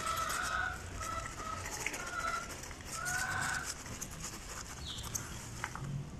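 Animal calls in the background: a series of short, level-pitched calls during the first few seconds, followed by a few faint knocks near the end.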